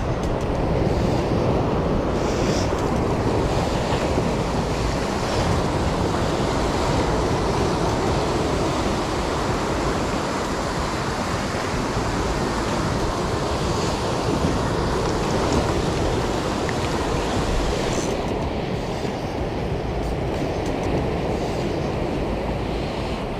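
Ocean surf breaking and washing over shoreline rocks: a steady rushing wash of water.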